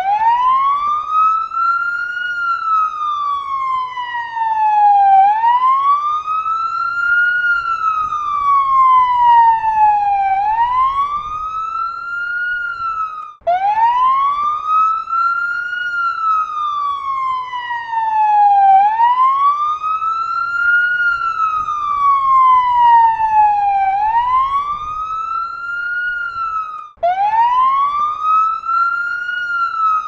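Fire vehicle siren wailing. Each cycle sweeps up quickly, then falls more slowly, repeating about every five seconds. Twice it breaks off for an instant partway through a fall and starts a fresh rise.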